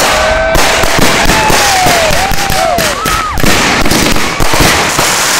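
Consumer aerial fireworks going off in quick succession: a dense run of cracks and bangs, with several whistling tones that arch up and down over the top.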